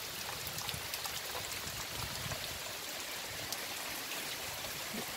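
Steady rain falling on an orchard: an even hiss with scattered faint ticks of drops, some of them dripping from the edge of a shelter's roof.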